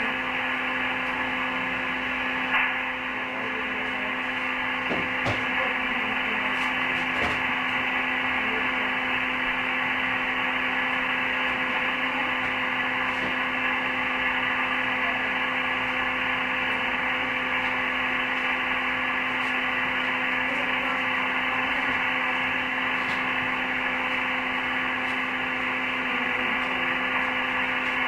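Steady static hiss from a two-way radio's speaker on an open channel, cut off above the voice band, with a steady hum under it and a few faint clicks.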